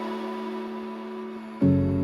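Ambient electronic music between sung lines: a held synth chord fades, then a new chord with deep bass comes in sharply near the end.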